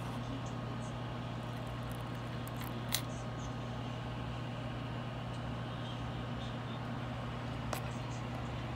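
Metal charms on a Pandora charm bracelet clicking lightly as they are handled, with two sharper clicks, one about three seconds in and one near the end, over a steady low hum.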